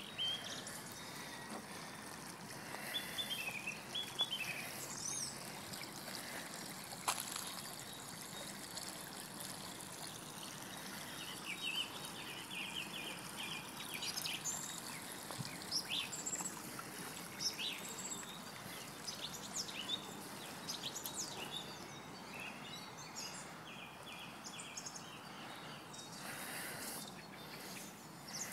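Shallow ornamental garden stream trickling and running steadily over stones and pebbles, with birds chirping and singing at intervals throughout.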